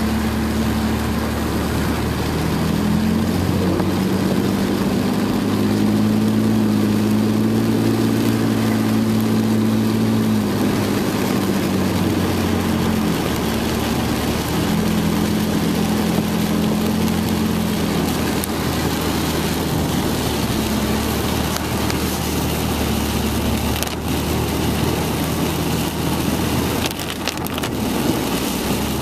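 Car driving on a wet road in rain, heard from inside the cabin. The engine hums and its pitch steps up and down with speed, over a steady hiss of tyres and rain. A few sharp knocks come near the end.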